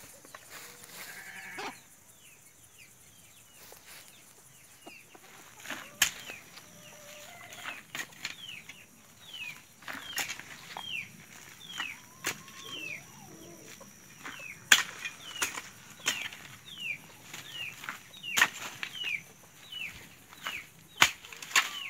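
A hoe chopping into loose soil and leaf litter, with a sharp strike every couple of seconds. Short falling peeps from a bird repeat between the strikes.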